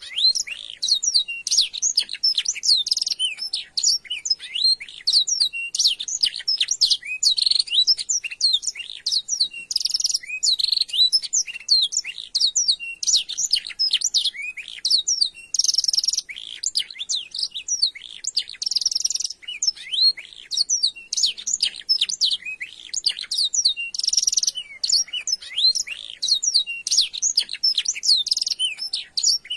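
Domestic canary singing a long, unbroken song of rapid high trills and chirps, phrases running into one another with only brief breaks.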